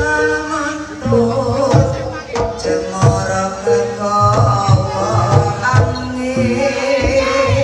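Live jaranan accompaniment music: a Javanese gamelan-style ensemble with frequent drum strokes and a wavering melody line over held ringing tones.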